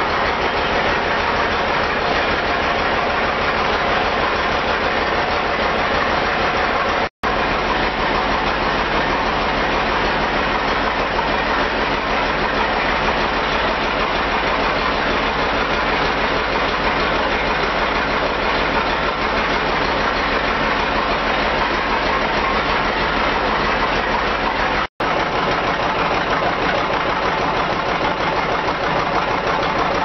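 Old sawmill machinery running steadily: a stationary engine turning over with a quick, even beat under a dense mechanical din. It breaks off for a split second twice.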